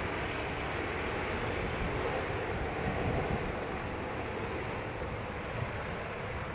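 Jet engines of an ANA Boeing 787 on the runway: a steady, even rushing noise with a faint steady tone running through it.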